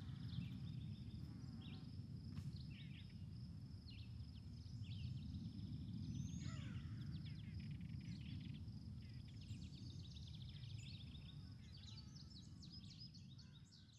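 Outdoor ambience: small birds chirping in many short, quick calls over a steady high insect buzz and a low rumble of wind. It fades away near the end.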